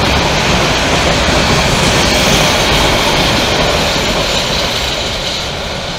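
Bangladesh Railway intercity passenger coaches passing close by at speed: loud, steady noise of wheels running on the rails, easing off a little toward the end.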